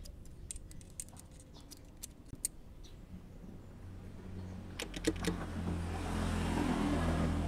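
Light metallic clicks and taps as a thin tool probes the selector mechanism, then a passing motor vehicle's engine hum swells about four seconds in, becomes the loudest sound, and fades near the end.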